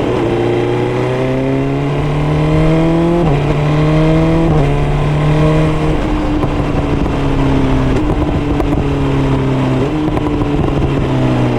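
BMW S1000R's inline-four engine pulling under way: its pitch climbs and drops back twice at gear changes about three and four and a half seconds in, then falls steadily as the bike eases off and slows.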